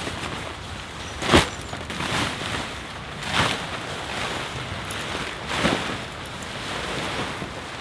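Large synthetic tent fabric rustling and flapping as it is pulled from its bag and shaken out, with three louder swishes about one and a half, three and a half and five and a half seconds in, the first the loudest, over a steady rushing background.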